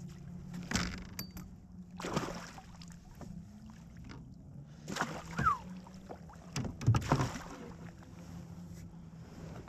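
Handling noise on a plastic fishing kayak: several sharp knocks and bumps against the hull and fittings, the loudest about seven seconds in, over a steady low hum.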